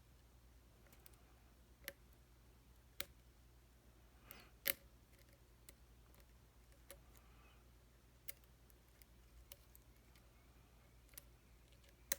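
Faint, scattered clicks of a lock pick and tension wrench working the pins of a pin-tumbler challenge lock, one every second or two, with a louder click about four and a half seconds in.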